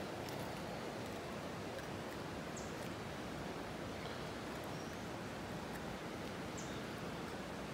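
Steady rush of flowing river water from a fast current, with a couple of faint, short bird chirps.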